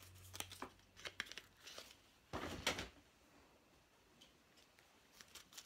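Faint handling noises of small plush toys being put down and picked up: scattered soft clicks and rustles, with one louder rustle about two and a half seconds in.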